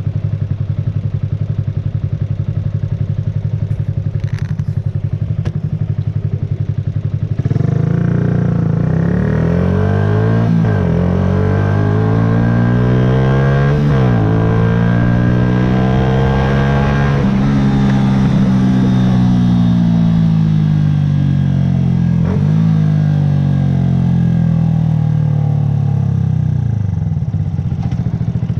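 A 2009 Yamaha YZF-R125's 125 cc single-cylinder four-stroke engine idles steadily, then pulls away about a quarter of the way in. The revs climb and drop back with each of several upshifts, then fall as the bike slows, and the engine settles back to idle near the end.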